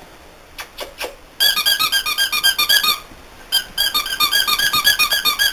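Squeaky dog toy squeezed over and over, rapid even squeaks at about seven a second, in two runs with a short break about three seconds in, after a few soft taps.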